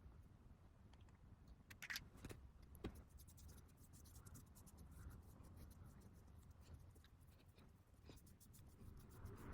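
Near silence with faint scratching and a few small clicks and taps.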